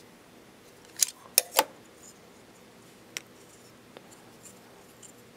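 Sharp clicks of small metal tube clamps and carbon-fibre gimbal parts knocking together as the clamps are fitted onto the tubes: three close together about a second in, one more about two seconds later, then a few faint ticks.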